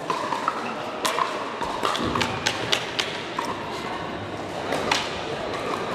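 Pickleball paddles striking a plastic ball during a doubles rally: a string of sharp pops at irregular intervals.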